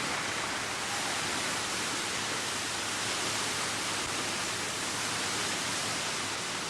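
Steady, even rushing hiss at a constant level, with no claps, voices or tones standing out.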